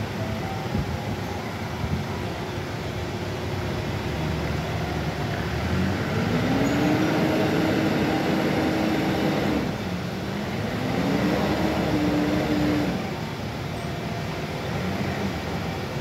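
Doosan forklift engine running and revving up twice: the pitch rises and holds from about six seconds in, falls back, then rises again for a few seconds before settling. The forklift is driving with a lifted load of bulk bags.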